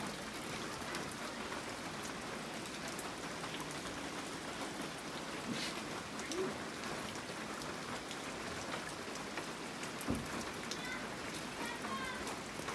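Steady rain falling on the forest foliage, a continuous even hiss with a few sharper drop taps scattered through it.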